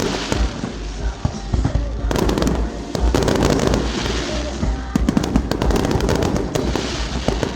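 Fireworks crackling and popping in a dense, continuous stream of sharp reports, with music underneath.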